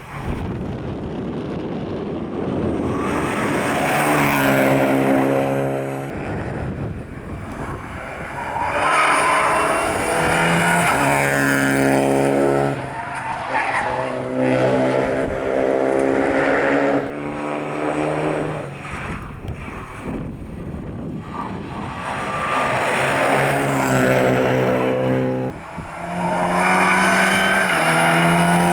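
Rally car engines driven hard, pitch climbing and stepping down again and again through gear changes as the cars come and go.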